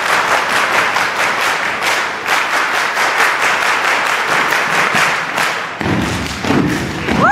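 A group clapping in unison in a fast, steady rhythm over crowd cheering. Near the end, a deep bass beat comes in.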